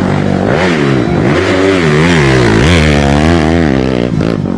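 Motocross dirt bike engine revving, its pitch rising and falling several times in quick blips.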